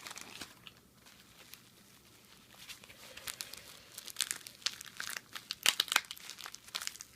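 Stylus packaging being handled and torn open, with crinkling and tearing that starts a couple of seconds in and grows into a run of sharp crackles near the end.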